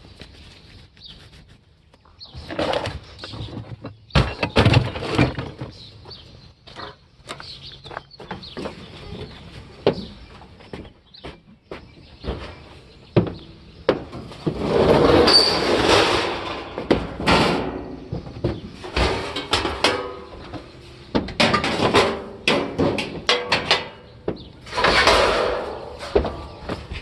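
Metal clanking, knocking and rattling as an air conditioning unit is pulled apart for scrap, with longer ringing clatters about halfway through and again near the end.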